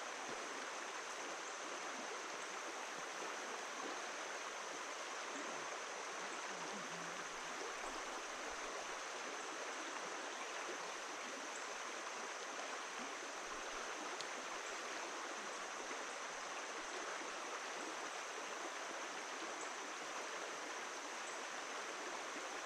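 River water flowing steadily over a waterfall or shoals, an unbroken even wash of water sound.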